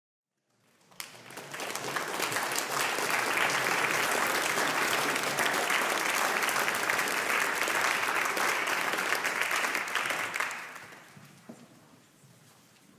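Audience applauding. The applause starts about half a second in, holds steady, and dies away near the end.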